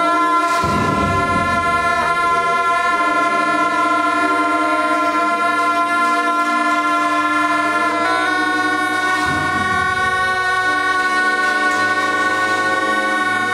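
Tibetan Buddhist ritual horns playing long, steady held notes, with deep low swells about a second in and again about nine seconds in.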